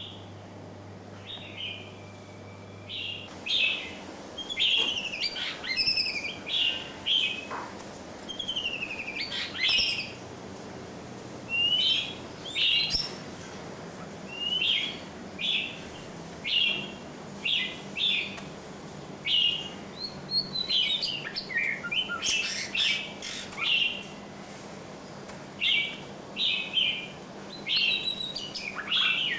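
Birds chirping: a series of short, sharp chirps, roughly one a second, with other rising and falling bird calls mixed in.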